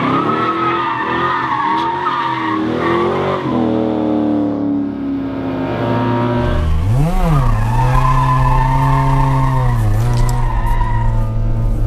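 Cars drifting: engines revving up and down with tyres squealing and skidding. In the second half a Mazda RX-7's two-rotor rotary engine takes over loud and steady, with one quick rev blip about seven seconds in and a brief dip about ten seconds in.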